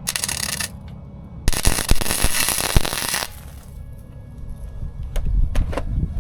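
Welding arc crackling in two bursts, a short one at the start and a longer one of nearly two seconds about a second and a half in, as a washer is welded onto a rusted, seized bolt. A couple of sharp clicks come near the end.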